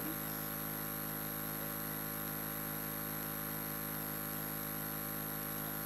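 Steady electrical hum and hiss from the microphone and sound system, with no speech.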